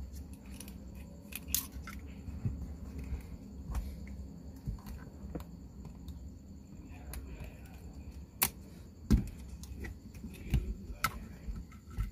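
Hard plastic clicking, knocking and scraping as a dash cam suction-cup mount is handled and fitted around the plastic stem of a car's rear-view mirror. There is a scatter of small irregular clicks, with two sharper knocks about eight and a half and nine seconds in.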